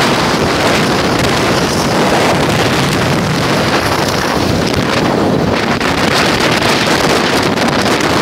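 Loud, steady wind noise buffeting the microphone, a constant rushing without any clear pitched engine tone.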